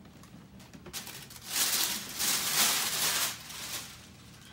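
Paper and cardboard rustling while a magnetic-lid shoe box is opened and handled, with a few light knocks before about two seconds of steady rustling in the middle.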